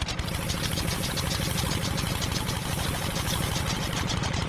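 Small electric motor whirring steadily, driving a toy thresher's plastic-bottle drum through a string belt, with a fast, even rattle as rice stalks are beaten against the spinning drum.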